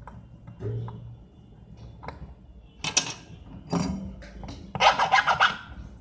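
A flat metal tool scraping against a phone's charging-port circuit board: a couple of separate scrapes, then a quick run of about eight short strokes near the end.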